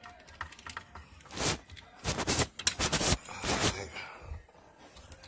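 Hands clicking and clattering a plastic electrical connector into place to reconnect the battery wiring, in several short bursts of rapid clicks, the busiest two to three seconds in.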